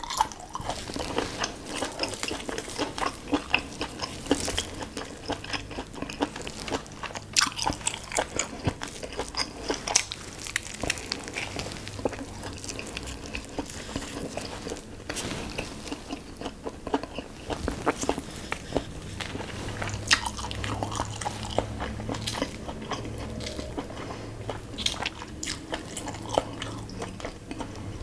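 Close-miked eating: a person biting and chewing food, with many irregular sharp crunches and wet mouth clicks.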